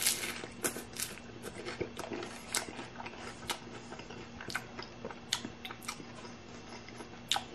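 A crunchy hard-shell taco bitten into with a sharp crunch, then chewed, the shell cracking in many irregular crisp crackles.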